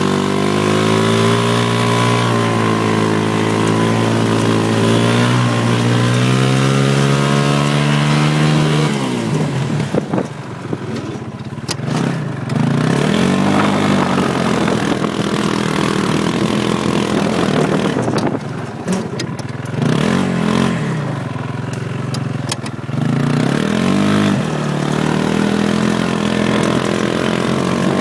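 Off-road buggy engine running at steady high revs, then easing off about nine seconds in and revving up and down several times, with a few sharp knocks in between, before holding steady again near the end.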